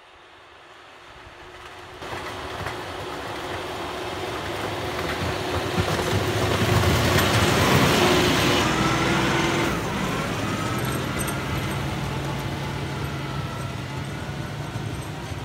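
Kioti diesel tractor with a snowblower, running. It grows louder as it approaches and is loudest as it passes close by, about eight seconds in. After a sudden drop it runs steadily.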